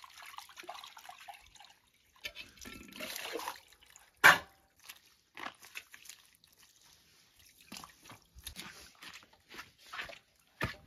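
Steel dishes being rinsed by hand with water scooped from a bucket: water pouring and splashing, one loud clank of metal utensils about four seconds in, then scattered small clinks as the dishes are handled.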